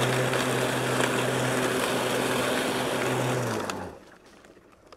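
Powersmart 80-volt cordless mower's electric motor and twin blades running steadily with a hum and rush of air, cutting and bagging dry leaves. About three and a half seconds in the motor is let off and winds down, its pitch falling, to a stop.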